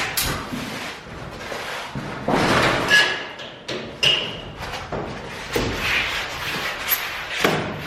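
Irregular knocks, thuds and scrapes of things being handled and set down, with a couple of short squeaks about three and four seconds in.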